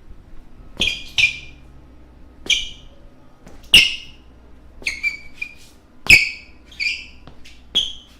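Basketball shoe soles squeaking on a floor: about nine short, sharp squeaks at irregular intervals.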